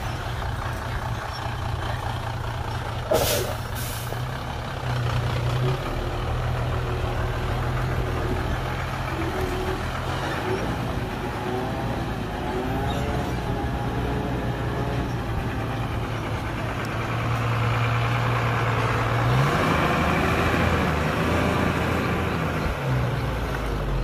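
Hyundai dump truck's diesel engine running as the loaded truck drives, with a brief hiss about three seconds in. Near the end the engine revs rise and fall.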